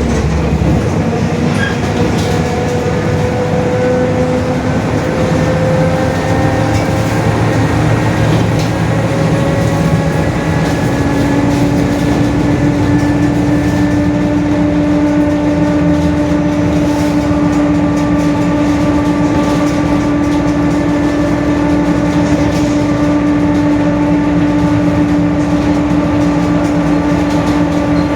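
Mercedes-Benz OF-1721 city bus under way, its rear differential whining over the engine and road noise. The whine climbs slowly in pitch, then holds as a strong steady tone through the second half: the noisy, growling differential of this bus.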